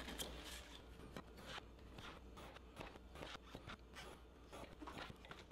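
Pencil scratching short lines across foam core along a steel square ruler: a string of faint, irregular scratches about two a second.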